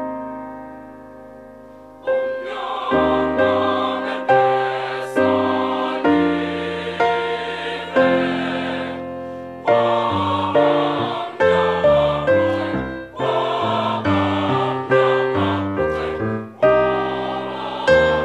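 Mixed school choir singing in harmony with electronic keyboard accompaniment. A keyboard chord fades away first, and the voices come in about two seconds in, singing in phrases.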